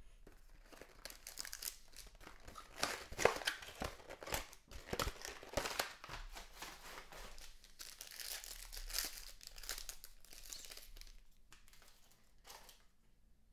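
Plastic trading-card packaging crinkling and tearing as card packs are opened and handled, in irregular crackles that thin out near the end.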